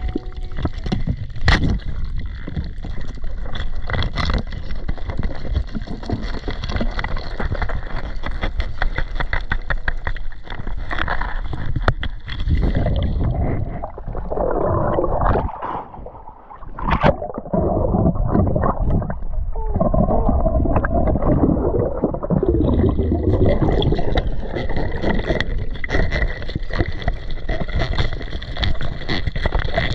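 Muffled underwater noise heard through a waterproof camera housing during a free-dive: water rushing and gurgling against the camera, with scattered clicks and knocks. Partway through, the higher hiss drops away for several seconds, then returns.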